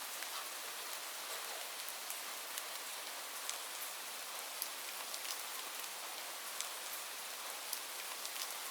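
Steady rainfall: an even hiss with many separate drops ticking and splattering on surfaces.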